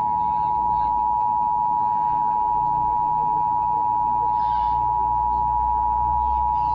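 Emergency Alert System attention signal: two steady tones near 1 kHz (853 and 960 Hz) sounding together, held unbroken.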